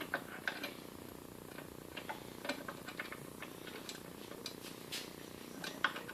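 Light, irregularly spaced clicks and ticks of washers and screws being handled and fitted by hand during assembly, over a faint steady low hum.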